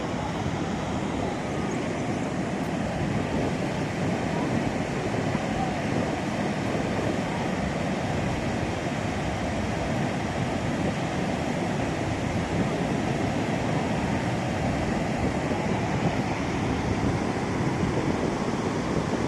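Niagara Falls' falling water making a steady, unbroken roar.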